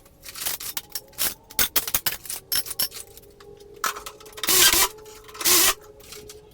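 Installation work noise: a run of clicks and knocks, then two short, loud, noisy bursts about a second apart near the end.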